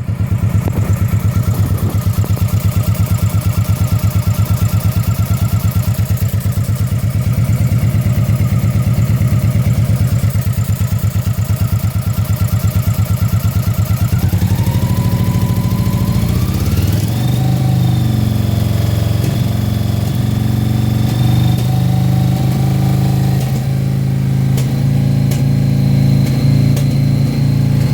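Honda PC800 V-twin motorcycle engine idling with a steady pulsing beat, then revved up about halfway through and held at higher revs. The engine misfires above 2600 rpm, which the owner puts down to low compression (110 psi front, 130 psi rear) and suspects an exhaust valve.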